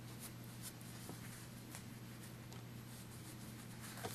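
Faint rustling and light scratching of a pencil pushing a small sewn fabric pillow right side out, as scattered soft ticks over a steady low hum.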